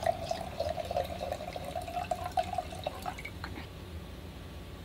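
Red wine pouring from a bottle into a stemless wine glass, a steady gurgling stream that stops about three seconds in.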